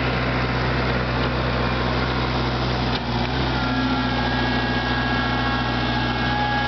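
New Holland compact tractor's diesel engine running steadily.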